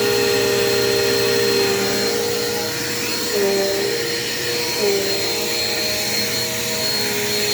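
Dirt Devil Quick Power upright vacuum cleaner running steadily over carpet, with a motor hum and a high whine. Its pitch sags briefly twice as it is pushed and pulled.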